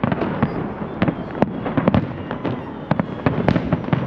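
A fireworks salute going off: many sharp bangs and reports in rapid, irregular succession, about three or four a second, over a continuous crackling rumble of further bursts.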